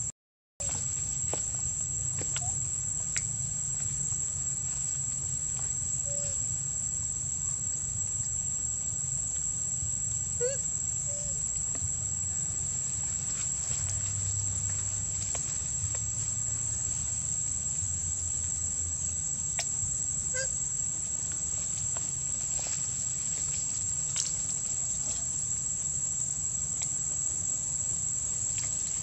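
Steady high-pitched drone of insects, crickets or cicadas, with a few faint short chirps now and then. The sound cuts out for a moment just after the start.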